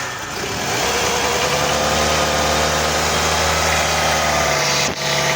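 Toyota Corolla engine running just after a cold start, held on light throttle so it does not stall, with the revs easing down slightly and then settling. It is running smoothly again now that the broken wire to the coolant temperature sensor has been repaired.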